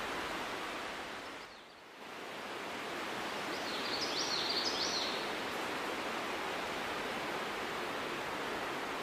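Steady, even hiss of outdoor background noise that dips briefly about two seconds in, with a few short, high falling chirps around the middle.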